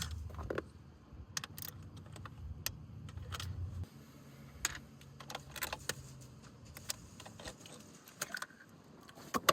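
Scattered light metallic clicks and jingles of small metal parts and tools being handled, over a low steady hum that drops away about four seconds in.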